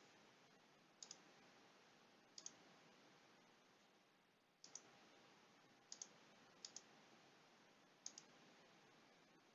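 Faint computer mouse clicks: six clicks spread over several seconds, each a quick pair of ticks, against near silence.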